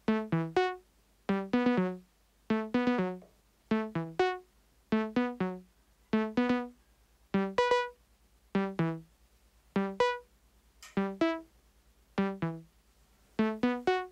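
Eurorack synthesizer voice playing a sequenced loop of short plucked notes, in quick clusters of two to four about every second and a bit. The pitches shift from phrase to phrase as probability-driven octave, fifth and seventh jumps combine on the melody.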